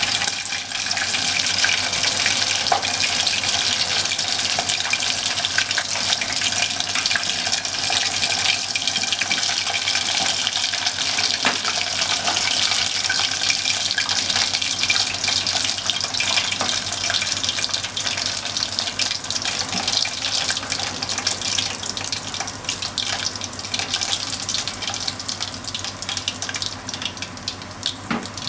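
Bone-in beef short ribs (kalbi) deep-frying in hot oil: a continuous dense sizzle with fine crackling, easing off a little near the end.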